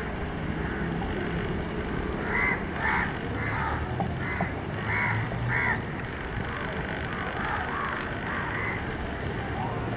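A bird calling over and over, loudest in a quick run of about seven calls, roughly two a second, starting a couple of seconds in, with fainter calls either side. A low steady hum runs underneath.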